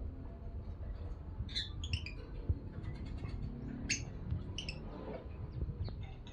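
Lovebirds giving short, high chirps: a quick cluster about a second and a half in, then single chirps around four seconds in, over a low rumble.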